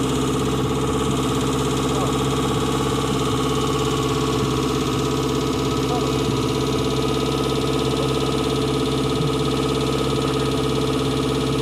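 Off-road buggy's engine idling steadily, the pitch and level holding even throughout.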